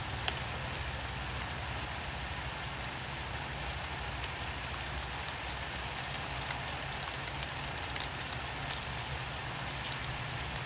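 Steady rain falling, an even hiss with scattered individual drop taps and one sharper tap shortly after the start. A low steady rumble runs underneath.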